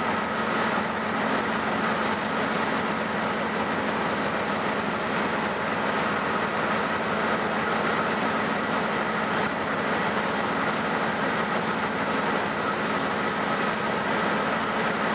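Amtrak GE P42DC diesel locomotive running steadily: a low, even engine hum with a higher whine over it.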